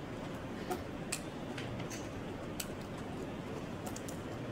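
Quiet steady room hiss with a few faint, short clicks scattered through it.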